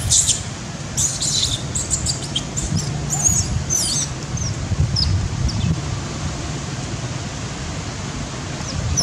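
High-pitched animal chirps and squeals come in a quick cluster over the first four seconds, then a few short, falling chirps follow around the middle, over a steady low background rumble.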